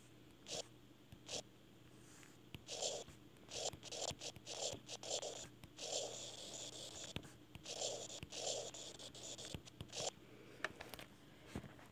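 Handwriting on a tablet's touchscreen: short scratchy strokes in irregular bursts, with light taps between them, as letters and brackets are written.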